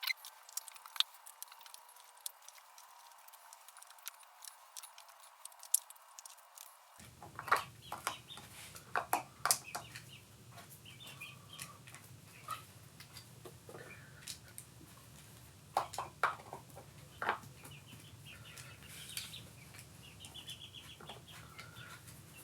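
Scattered light clicks and clinks of hand tools and metal clutch parts being handled while working on a motorcycle clutch, with a few short squeaky tones mixed in.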